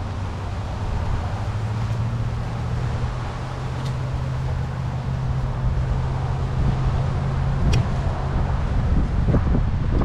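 A motor vehicle's engine hum, steady and rising slightly in pitch, stopping about eight seconds in, over wind on the microphone. A few knocks and rustles come near the end.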